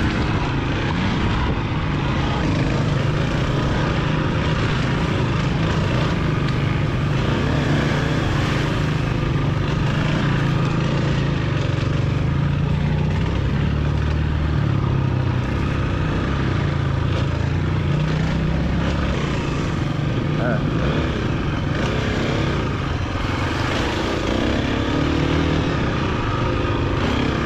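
Dirt bike engine heard from on board the bike, running continuously as it rides along, the revs rising and falling.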